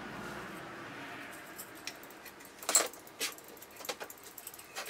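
Handling noise as a cable is threaded through a metal lamp fitting: a soft rubbing, then a few sharp clicks of small metal parts knocking together, the loudest a little under three seconds in.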